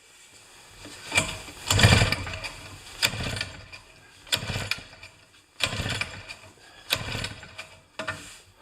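Small snowblower engine cranked over by its recoil pull-starter about seven times, about a second apart, with a compression gauge in the spark plug hole; it does not fire. The engine reads about 105 psi of compression.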